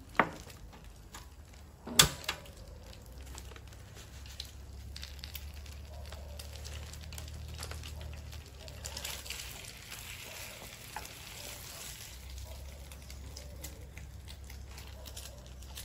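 Egg-coated bread frying in oil in a pan, sizzling steadily. Two sharp metal utensil clinks come near the start.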